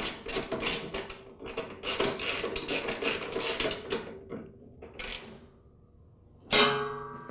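Ratchet wrench on a long extension tightening the seat-spring bolt, with rapid clicking for about four seconds that then dies away. Near the end comes a single loud metallic clank that rings on briefly.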